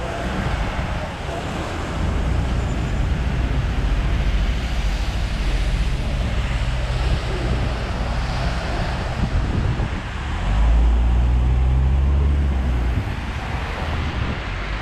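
Road traffic on a wet road: continuous tyre hiss over a low engine rumble. It swells to its loudest and deepest from about ten to thirteen seconds in, as a heavier vehicle passes close by.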